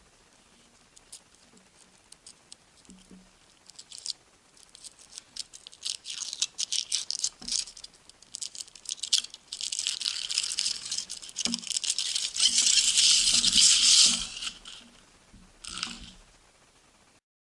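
A chocolate surprise egg being unwrapped and opened by hand: crinkling and crackling of its wrapper and shell. There are scattered crackles at first, then denser and louder crackling, which stops about 14 seconds in. A short last burst follows near the end.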